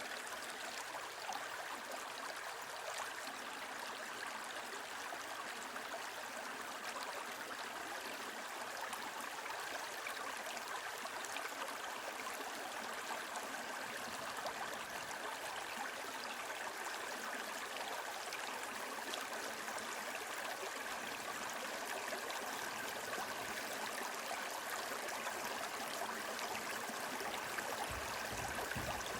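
Small brook babbling steadily over stones, a continuous rushing and gurgling of running water.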